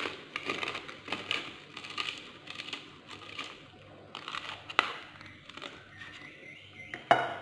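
Knife sawing through the crumb crust of a deep-fried egg katsu, the crisp coating crunching in short strokes about twice a second. There is a sharp click near the middle and a louder knock near the end as the blade meets the plate.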